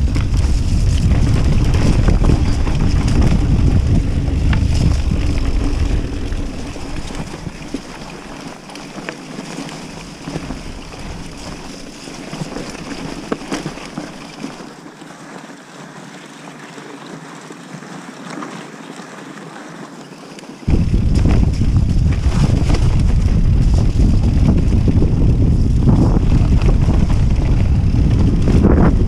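Wind buffeting the action camera's microphone and tyres rumbling over a dirt trail as a Kona Process 153 DL mountain bike descends, with scattered clicks and rattles from the bike. The low rumble falls away through the middle and comes back abruptly about three-quarters of the way through.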